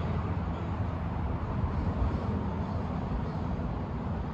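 Steady low rumble with an even hiss underneath, unchanging and without any distinct knocks or clicks.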